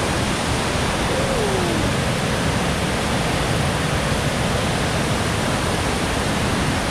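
Floodwater spilling through a dam's open spillway gates and crashing down the spillway face: a steady, even rushing of water.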